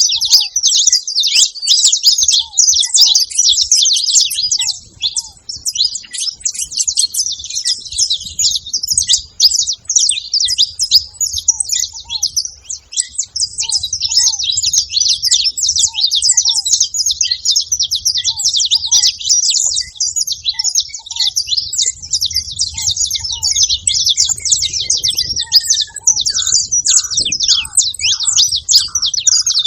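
Saffron finches chirping and twittering in a dense, rapid, high-pitched stream without pause. Short, lower single notes come in about every second or two, and near the end a brief run of lower notes drops in pitch.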